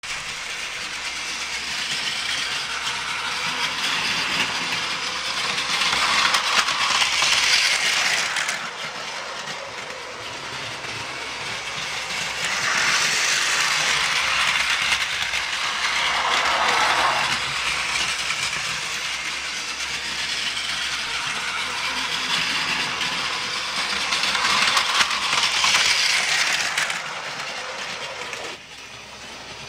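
Battery-powered Plarail toy Shinkansen running on plastic track, its small motor and gears whirring and wheels clattering. It swells louder three times as it passes close, and drops away suddenly near the end.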